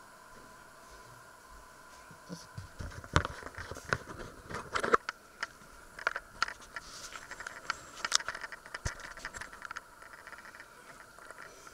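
Handling noise as a handheld camera is picked up and carried around: irregular clicks, knocks and scraping rustles, busiest in the middle, over a faint steady high hum.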